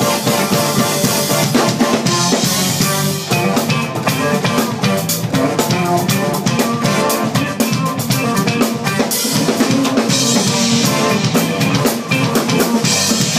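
Smooth jazz band playing live, the drum kit loudest, with steady kick, snare and rimshot strokes over sustained bass and other pitched instrument notes. Cymbal wash swells twice.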